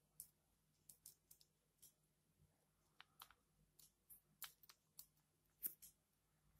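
Faint, irregular clicks and light taps of small plastic and metal parts being handled and fitted by hand into a Shimano Zee trigger shifter during reassembly, the loudest click coming near the end.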